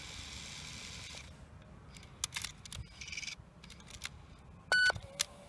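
Aiwa HS-PX580 cassette player's playback output between tracks: tape hiss that cuts off about a second in, then a few scattered clicks and a short electronic beep near the end.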